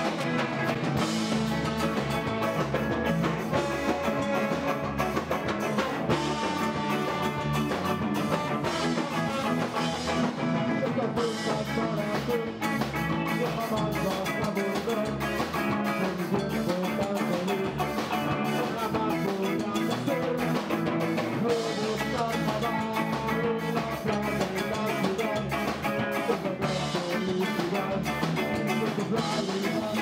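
Live ska band playing: trombone, electric guitar and drum kit, with a singer.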